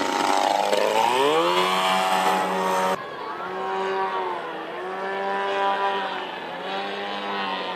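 Radio-controlled model airplane engine running at a high, buzzing pitch. It drops in pitch and then climbs back up in the first second and a half, and holds steady. After an abrupt break about three seconds in, it keeps running and wavers up and down in pitch.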